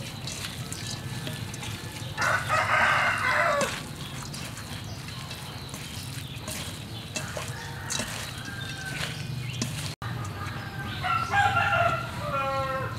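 A rooster crowing twice, each crow about a second and a half long, the second coming about eight seconds after the first.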